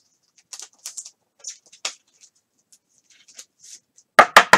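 Trading cards and a foil pack wrapper being handled: scattered light rustles and ticks, then three loud, sharp crackles a little after four seconds in.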